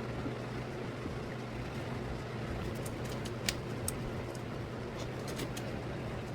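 Steady low background hum with a handful of light clicks and taps, the sharpest about three and a half seconds in, from hand tools and parts being handled while the mass airflow sensor is fitted to the intake.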